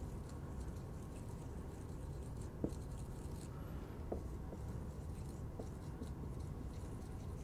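Dry-erase marker writing on a whiteboard: faint strokes with a few brief sharper sounds, over a low steady room hum.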